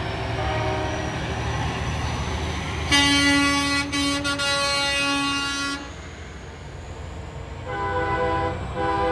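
A semi truck's air horn blasts for about three seconds, followed near the end by two short horn toots, over the low rumble of diesel truck engines.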